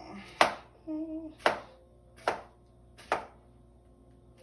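Knife chopping pineapple into cubes on a cutting board: four sharp strikes, roughly a second apart.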